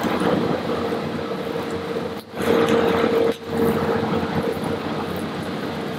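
Lobster pieces sizzling on an open-flame grill, under steady kitchen noise with a faint hum. The sound briefly dips out twice near the middle.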